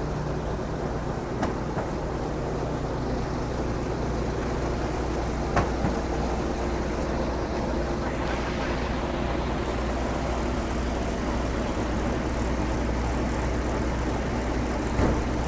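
Steady low hum of an idling engine, such as a parked bus or truck, with a few short sharp knocks: one about a second and a half in, a louder one around five and a half seconds, and one near the end.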